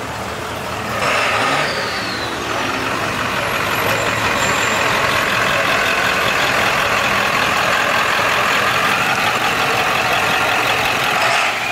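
Lifted pickup truck rolling slowly past with its engine running. A steady high whine sets in about two seconds in and holds over the engine noise.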